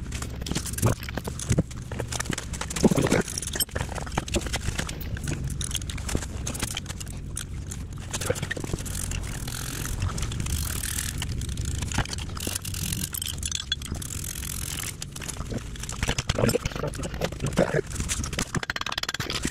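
Scattered metallic clicks, clanks and scrapes of hand work on a drive shaft and its tools on a concrete garage floor, the sharpest knock about three seconds in, over a low steady hum.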